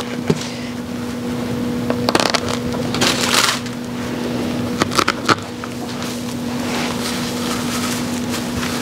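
Dry moss rustling and crackling in short bursts as it is spread and pressed onto a straw wreath, over a steady hum and hiss.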